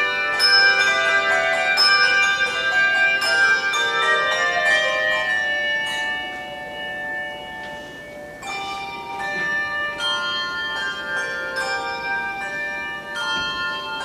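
A handbell choir ringing a tune on tuned handbells, several bells sounding together, each note struck and left to ring on. Partway through the notes thin out and fade, and the ringing picks up again about eight and a half seconds in.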